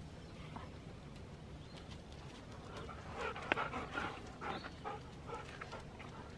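Dogs vocalising in a quick flurry of short sounds about three to five seconds in, with one sharp click among them.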